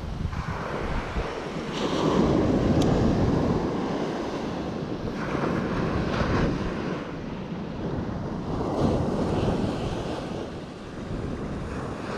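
Ocean surf breaking and washing up a sandy beach, swelling and ebbing every few seconds, with wind buffeting the microphone.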